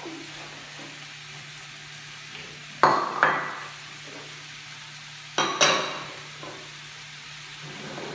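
Chicken and peppers sizzling in a hot frying pan as they are stirred with a silicone spatula. Twice, about two and a half seconds apart, there is a pair of sudden loud hits in the pan that tail off quickly.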